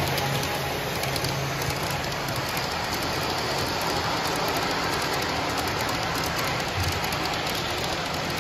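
Steady, even din of a crowded exhibition hall, with no single sound standing out; a low hum fades out about two and a half seconds in.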